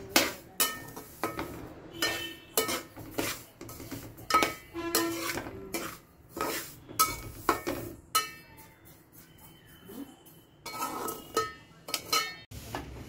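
Metal slotted spoon scraping and knocking against an aluminium pot while stirring dry broken wheat as it is dry-roasted: irregular sharp clinks with brief metallic ringing, easing off for a moment about nine seconds in.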